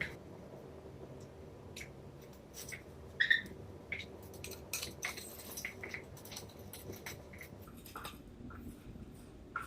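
Scattered light clicks and taps of the stainless steel tubes and parts of a telescopic drying rack being handled and fitted together, the loudest about three seconds in.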